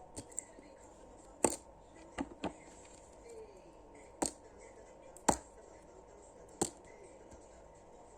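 A series of sharp clicks and taps, about eight at irregular intervals, from small plastic toys and packaging being handled and opened.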